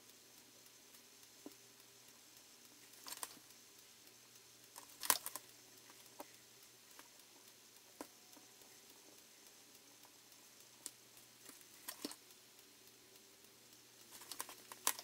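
Quiet handling noise: scattered small clicks and taps as thin motor wires are handled and set into the metal alligator clips of a helping-hands soldering stand, the loudest click about five seconds in, over a faint steady hum.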